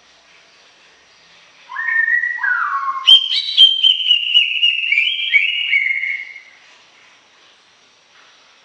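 Cucak ijo (green leafbird) singing one loud whistled phrase of about five seconds: it opens with lower slurred notes, then runs on in higher stepped whistles with a few sharp clicking notes, and stops near the end.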